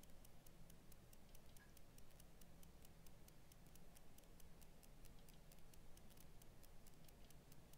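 Near silence: room tone with a faint low hum and a faint, regular ticking, about four ticks a second.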